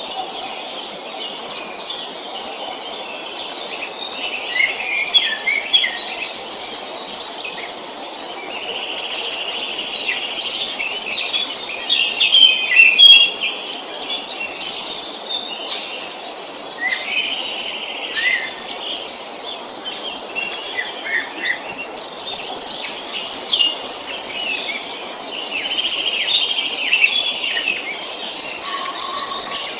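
Several songbirds singing at once, a dense overlap of chirps, trills and whistled phrases, over a steady faint background noise.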